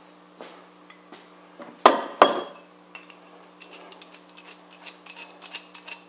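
Metal hand tools being handled: two loud clanks about 0.4 s apart, roughly two seconds in, then a run of light metallic clinks.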